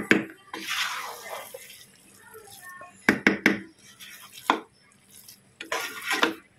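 A ladle gently stirring biryani rice in a cooking pot. There is soft scraping and several sharp clinks of the ladle against the pot: one at the start, three in quick succession about three seconds in, and more near the end.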